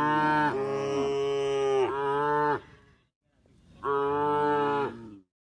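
A cow mooing twice: a long moo of about two and a half seconds that shifts pitch partway through, then a shorter moo about four seconds in.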